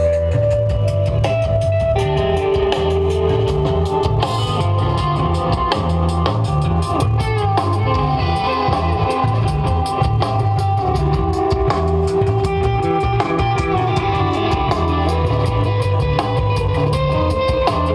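Live desert rock band jamming instrumentally: electric guitar holding long sustained notes over a heavy low end and a steady drum-kit beat.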